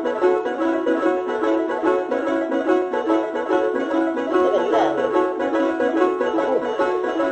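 Background music: a fast tune of short, evenly repeated notes with a steady beat.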